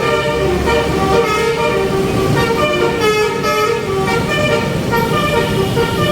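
Telolet basuri multi-tone air horn on a Po Haryanto bus playing a continuous tune: several pitched notes sound together and change in steps.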